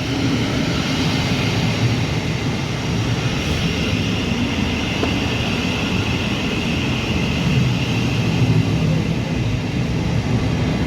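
Thameslink Class 700 electric multiple unit moving along the platform, a steady rumble of wheels and running gear with a faint high whine in the middle.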